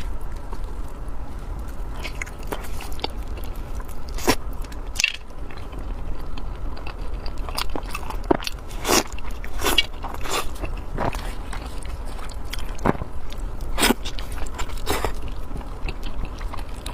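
Close-miked eating: biting and chewing, with irregular wet mouth clicks, smacks and crunches over a steady low hum.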